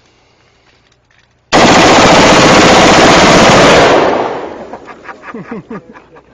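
One long full-auto gunfire burst, starting about a second and a half in and lasting about two and a half seconds, then echoing away over the next couple of seconds.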